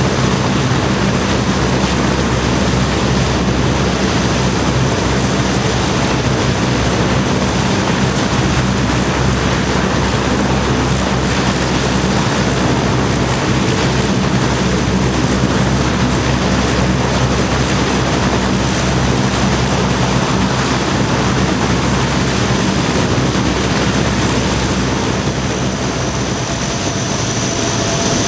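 Lockheed C-130 Hercules's four turboprop engines running steadily as the aircraft taxis, a loud propeller drone. A higher whine joins in near the end.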